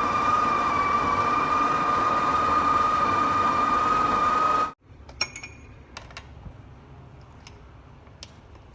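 Breville 870XL's built-in conical burr grinder running steadily with a high, even whine as it grinds coffee beans into the portafilter, cutting off suddenly after about five seconds. A few faint clinks follow.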